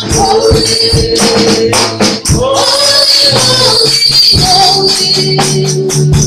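Live gospel praise music: women singing into microphones over a drum kit, with a tambourine shaken and struck along.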